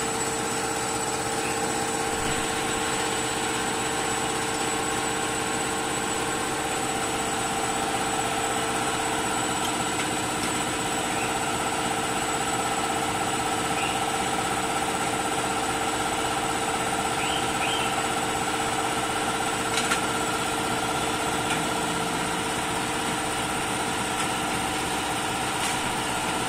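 Machinery running steadily: a continuous hum with several steady pitched tones over an even hiss.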